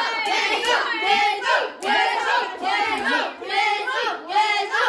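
A group of children cheering in a rhythmic chant, with overlapping voices rising and falling about twice a second.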